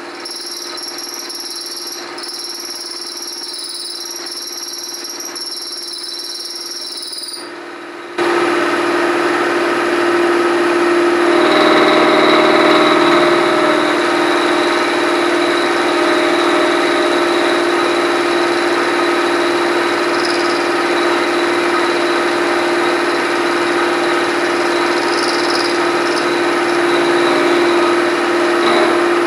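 Knee milling machine running an end mill through a metal block: steady machine hum and cutting noise. A high whine sounds over the first eight seconds or so, then the noise steps up and stays louder.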